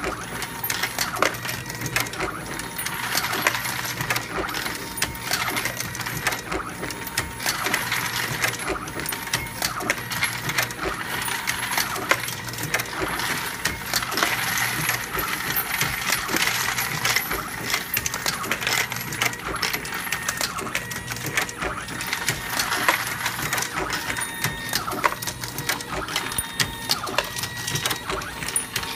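Dillon Super 1050 progressive reloading press driven by an AmmoBot MK1 autoloader, cycling continuously while loading 9mm Luger cartridges: a steady metallic clatter and clicking of the press and brass cases, with a steady low hum underneath.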